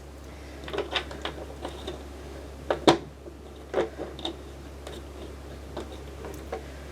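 Plastic Lego bricks clicking and knocking as they are handled and pressed together, a dozen or so irregular sharp clicks with the loudest about three seconds in.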